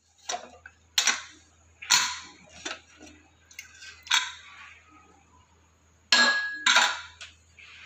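Aluminium pressure cooker lid being unlocked and lifted off its pot: a series of sharp metal clanks and clinks, several in all, the two loudest near the end, one of them with a short ring.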